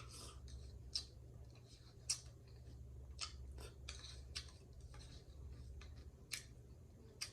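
Close-miked eating of coleslaw: chewing with a series of short, sharp clicks and crunches at irregular intervals.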